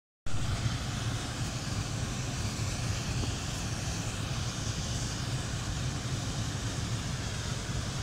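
Waterfall pouring into a river: a steady rush of falling water with a strong low rumble.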